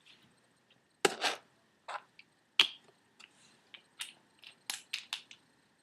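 Small hard clicks and taps from handling an e-liquid bottle and a rebuildable dripping atomizer while the cotton wicks are juiced. Louder knocks come about a second in and again a little after two seconds, then a run of lighter, quicker clicks.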